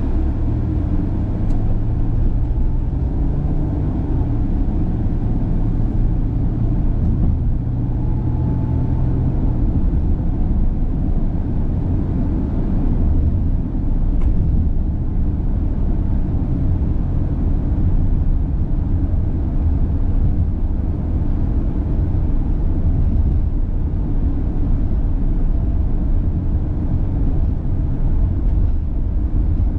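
A car driving at low speed: steady engine and road rumble, with a low engine hum that is clearer for the first ten seconds or so.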